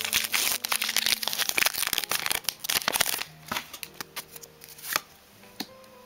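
Pokémon booster pack's foil wrapper crinkling and tearing open, a dense crackling that stops about three seconds in. Then a few soft clicks of cards being handled over faint background music.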